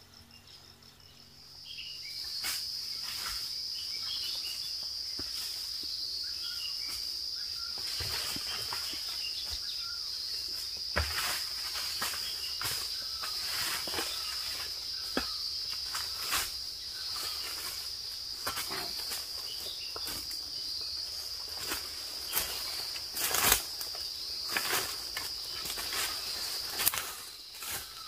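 Insects droning with a steady high buzz that sets in about two seconds in, over irregular footsteps crunching and rustling through dry leaf litter and undergrowth, with a few louder cracks.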